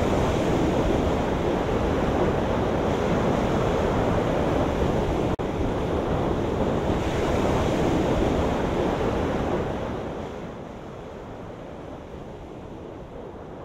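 Sea surf washing onto the beach, with wind buffeting the microphone. The sound briefly cuts out about five seconds in, and drops to a lower level from about ten seconds in.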